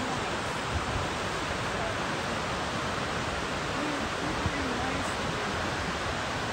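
Steady rush of flowing water from a stream or waterfall, with a faint voice briefly about four seconds in.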